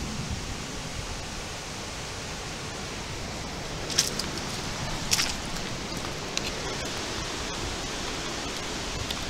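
Steady rushing of a storm wind through the trees, with two brief sharp crackles about four and five seconds in.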